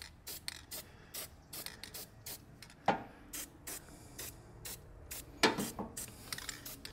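Aerosol battery terminal protector sprayed through its straw nozzle in short hissing bursts, about three a second, coating the cleaned battery terminals to seal them against corrosion. Two louder knocks stand out, about three and five and a half seconds in.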